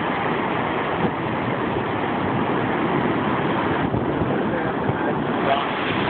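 Waterfall and whitewater cascade rushing steadily over boulders.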